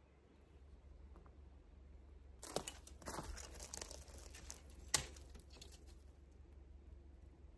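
Footsteps crunching and crackling through dry twigs and forest litter, starting about two and a half seconds in, with one sharp snap near five seconds.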